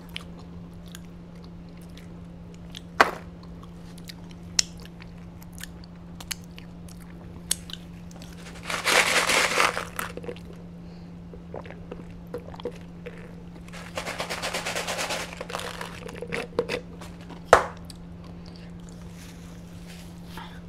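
Close-miked eating sounds: chewing and biting on Raising Cane's fried chicken tenders, with scattered sharp clicks and crunches. About nine seconds in there is a longer noisy rush as the fountain-drink cup is tipped up to drink, another rush around fourteen seconds, and a steady low hum underneath.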